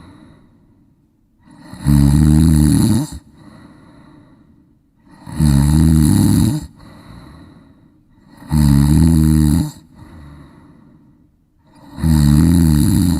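Ducks snoring: four loud, drawn-out snores at an even rhythm about three seconds apart, each lasting about a second, with softer breaths between.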